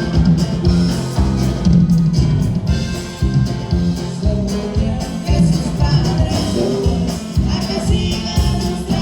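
A norteño band playing live with singing, over a steady, regular bass-and-drum beat.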